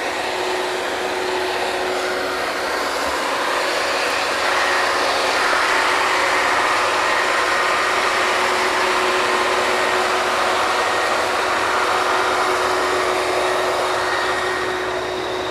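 Drilling rig machinery running while the rig drills: a loud, steady mechanical noise with a constant hum through it.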